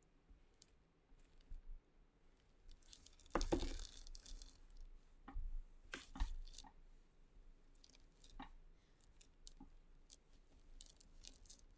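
Faint handling noises of a damp sponge and hands rubbing and pressing on a wet clay slab, with scattered soft clicks and knocks from tools on the board. The loudest knock comes about three and a half seconds in, and another about six seconds in.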